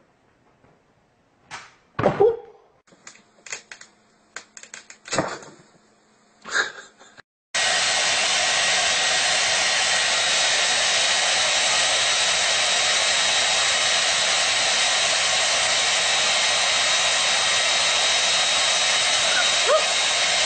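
A few brief, separate noises, then a hand-held hair dryer switches on abruptly about seven seconds in and runs steadily, with a faint high whine in its rushing air.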